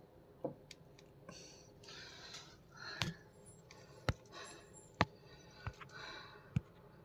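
Handling noises: a handful of sharp knocks and clicks, the loudest two about four and five seconds in, with short bouts of rustling and scraping between them.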